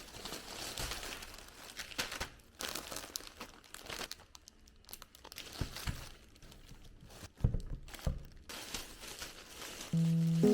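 Crinkling and rustling of something being handled, in irregular small crackles and clicks. Music comes in near the end.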